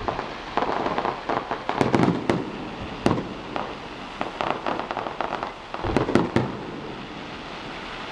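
Fireworks display going off: a run of sharp bangs and crackling bursts, thickest about two seconds in and again around six seconds in.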